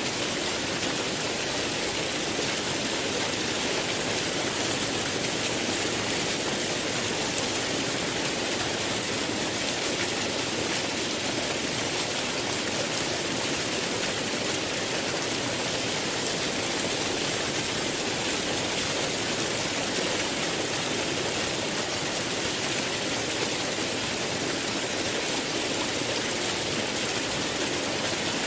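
Running water rushing steadily, an even, bright hiss that does not change.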